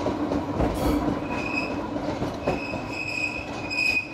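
Electric passenger train running over curved track, its wheels squealing on the curve: a steady high squeal sets in about a second in over the rumble of the wheels on the rails.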